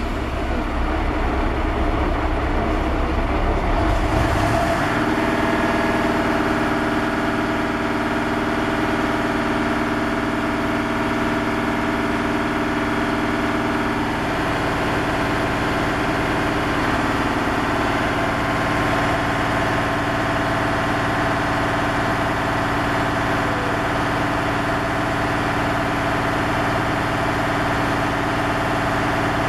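Mobile crane's engine running steadily under load. About five seconds in, it picks up speed into a steady hum with a higher whine, and the pitch shifts slightly about fourteen seconds in.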